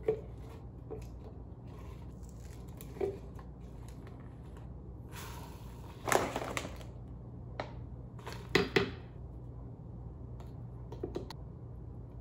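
Smoothie ingredients going into a plastic blender cup: light handling knocks, a plastic bag of frozen fruit rustling about five seconds in, then hard frozen fruit pieces clattering into the cup, with another cluster of knocks about two seconds later.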